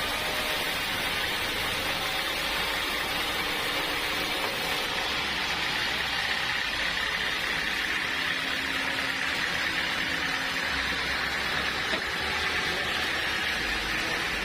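Sawmill machinery running steadily as it saws a log of hard acacia wood, a constant mechanical noise without pauses.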